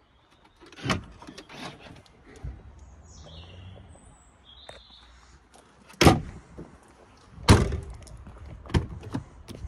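Tailgate and doors of a 2006 Range Rover being opened and shut: a series of sharp clunks, the two loudest about six and seven and a half seconds in.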